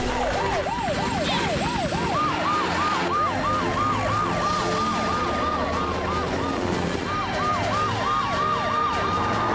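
Several emergency-vehicle sirens sounding together, each a fast repeating up-and-down wail; a second, higher-pitched siren joins about two seconds in, over a steady low hum.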